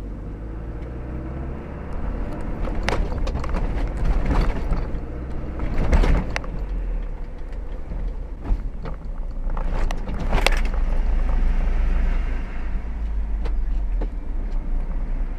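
A vehicle driving in city traffic, heard from inside the cabin: a steady low engine and road rumble, with a few sharp knocks about 3, 6 and 10 seconds in.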